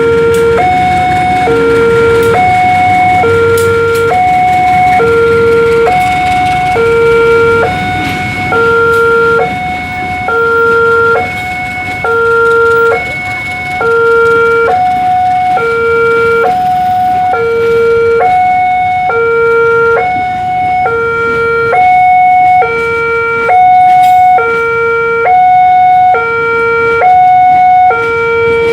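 Railway level-crossing warning siren sounding a two-tone hi-lo alarm: a lower and a higher note alternate evenly, each held about two-thirds of a second, the lower note the louder. It signals that a train is approaching the crossing.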